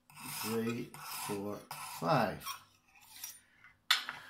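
Coarse diamond hone of a Lansky-style guided-rod sharpener drawn back and forth along a knife edge with no pressure, several rasping strokes, each with a ringing, wavering tone, as the burr on the edge is taken down. Near the end, one sharp click as the hone is set down on the wooden board.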